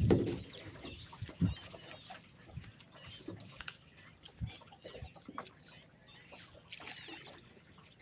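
Lake water lapping and slapping against the hull of a small boat under way, in irregular low knocks and splashes, the strongest right at the start and about one and a half seconds in.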